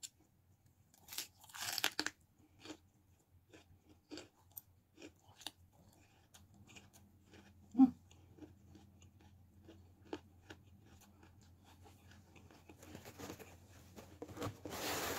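Close-up chewing of raw bitter gourd (ampalaya) with instant noodles: a few loud crunchy bites about a second in, then a run of small wet chewing clicks. A longer rustle comes near the end.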